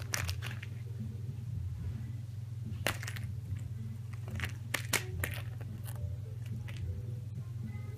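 Cat pawing at and biting a fluffy toy: scattered soft clicks and crackles over a steady low hum, with the busiest run of clicks about halfway through.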